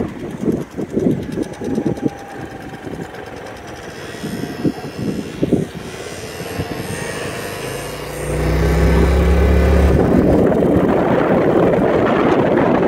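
Small motor scooter engines, among them a Genuine Roughhouse 50, buzzing as they ride along, with the pitch rising and falling. About eight seconds in, a louder, steady low rumble sets in and holds.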